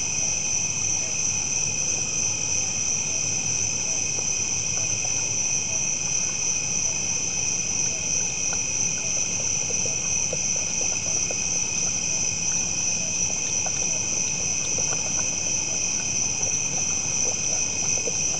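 Steady night chorus of crickets and other insects, a continuous high-pitched drone in several layered bands. Faint scattered ticks run underneath it from partway through.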